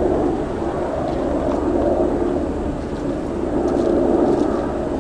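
Steady vehicle engine rumble with no sudden events.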